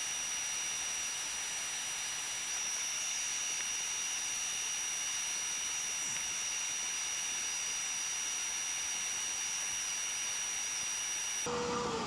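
Grinder with a cutoff wheel running steadily with a high whine, grinding the metal shoulder off an old suspension bushing. Near the end it is switched off and its pitch falls as the wheel spins down.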